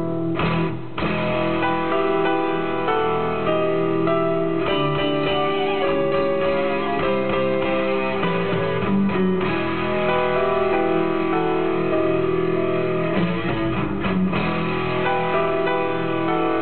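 Music led by guitar, with many held notes changing throughout.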